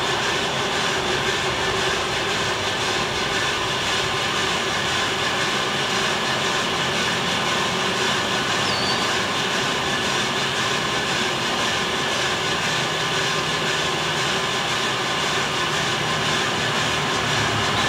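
Bideli 2 kg propane drum coffee roaster running mid-roast: a steady, loud noise of the burner, turning drum and air fan, with no cracks yet as the beans approach first crack.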